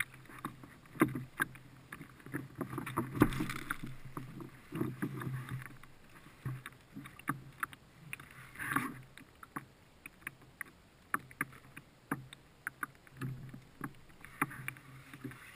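Scattered clicks, knocks and rustles of a landing net and fishing gear being handled aboard a plastic sit-on-top kayak, coming at irregular intervals with a few louder thumps.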